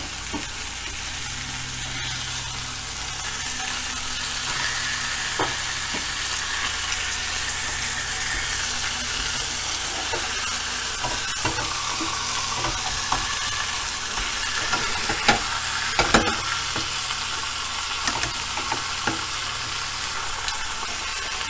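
Pork chops sizzling in a frying pan: a steady hiss of hot fat with a few sharp pops, the loudest about 16 seconds in.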